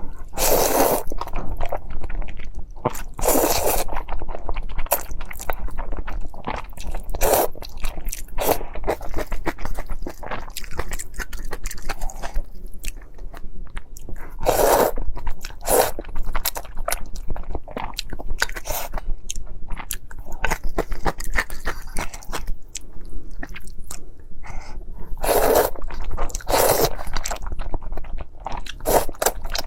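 Close-miked eating sounds: steady chewing with irregular crunches and bites, a handful of louder crunches standing out now and then.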